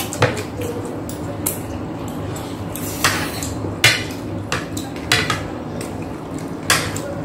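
Eating at the table: several scattered sharp clinks and taps of cutlery and fingers against plates.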